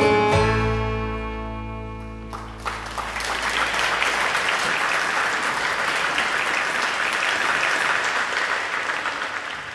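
A bluegrass band's final chord rings out and dies away over about two seconds, then the audience applauds, fading toward the end.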